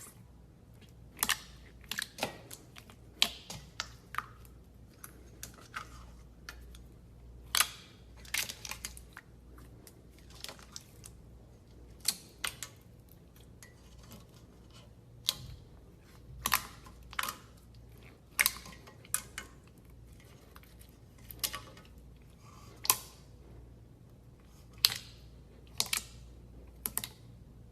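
Slime being pressed and worked by hand, giving irregular sharp clicks and crackling pops, about one to three a second and sometimes in quick little clusters.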